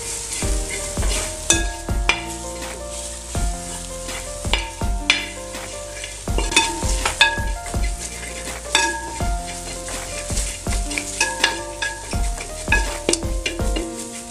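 Steel spoon stirring and scraping shallots and spices as they fry in oil in a large metal pot, with frequent irregular clinks of the spoon against the pot over a steady sizzle. The chilli powder and masala are being roasted in with the shallots.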